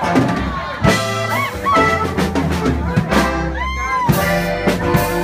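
Live band music with no singing: brass horns play a melody over electric bass and drum hits.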